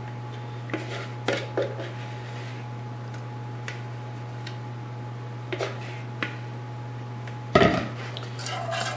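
Light taps and scrapes of a spatula against a plastic bowl as it is scraped out into a saucepan, then a loud clatter about seven and a half seconds in as a metal whisk goes into the pan. A steady low hum runs underneath.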